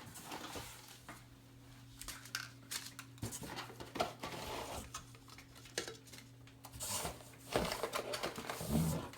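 Hands rummaging through a box of small items in search of a spoon: scattered clicks, knocks and clattering with rustling, over a steady low hum.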